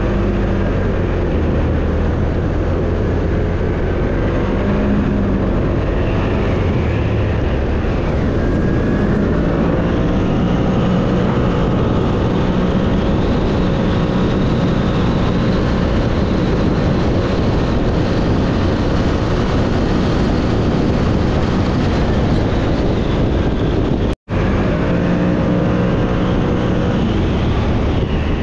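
CFMoto G3 1000's V-twin engine running under way, its pitch rising and falling with the throttle. The sound cuts out for an instant near the end.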